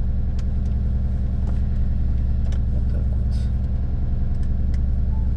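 A car engine running steadily, heard from inside the cabin as an even low hum, with a few light clicks and taps over it.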